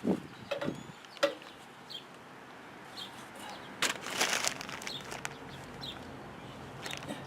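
Small birds chirping now and then, with a sharp click about a second in and a short scraping rustle around four seconds in from hands-on work on the plow.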